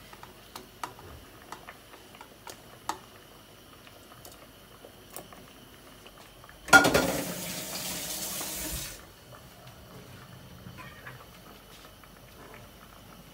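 Light clinks of fresh anchovies and a plastic bowl against a steel cooking pot. About seven seconds in comes a sharp ringing knock on the pot, then about two seconds of rushing water that stops suddenly.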